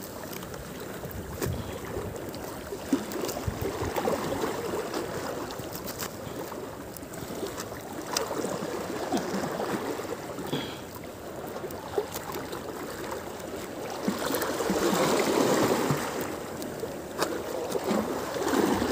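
Choppy water sloshing and splashing below a fishing platform, swelling louder about three-quarters of the way through, with a few brief clicks.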